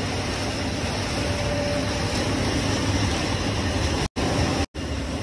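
Textile printing machinery in a saree printing factory running with a steady, dense mechanical drone. The sound cuts out to silence twice, briefly, near the end.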